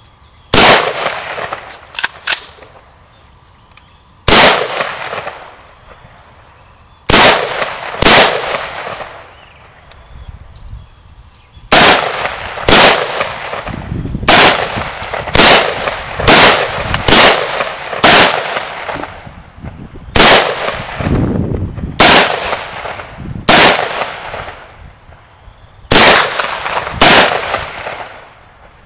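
Single semi-automatic rifle shots from a Romanian WASR-10/63 AK in 7.62x39mm, later joined by an AR-15 in 5.56 NATO, each sharp crack trailing off in an echo. The first few shots come several seconds apart; from about twelve seconds in they come quicker, about one to two a second.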